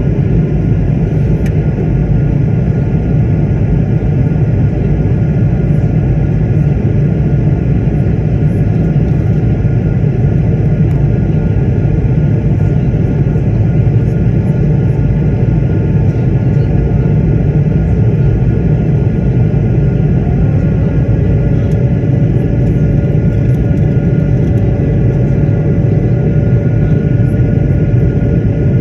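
Airliner cabin noise: a steady low rumble of engines and airflow heard from inside the passenger cabin, with a few faint steady whining tones over it and another tone joining about 20 seconds in.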